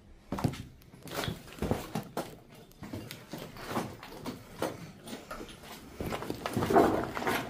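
Footsteps crunching and knocking irregularly over loose brick rubble and debris, with a louder, longer scrape near the end.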